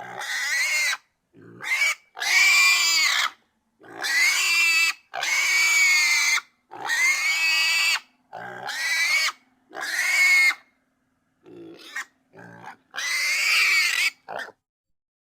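Pig squealing: a string of about a dozen high-pitched squeals, each up to about a second long, separated by short gaps, with a few shorter, fainter yelps near the end.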